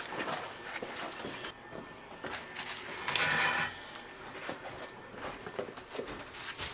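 Broken masonry chunks clinking and scraping against a concrete block as it is lifted and carried, with scattered knocks and a short rattle of loose rubble about three seconds in.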